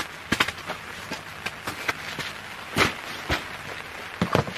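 Footsteps on gravel and camping gear being handled, with several short knocks and thuds, the last ones as a plastic water bottle and a food tray are set down on a wooden camp table.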